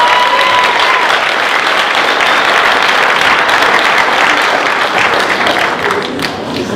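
Audience applauding, with one voice holding a high whoop over the clapping in the first second. The clapping thins out near the end.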